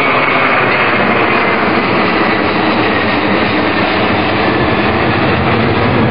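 Boeing 747-300's four jet engines at climb-out power, passing low overhead: loud, steady engine noise with a faint high whine that fades in the first second or so.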